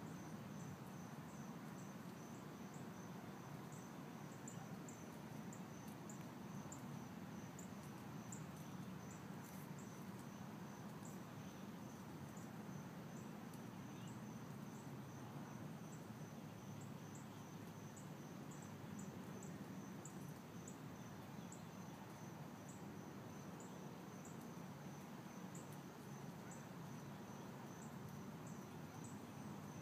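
Insects chirping faintly and steadily: a high, evenly pulsing trill with short, sharper chirps repeating over it, above a low, even background rumble.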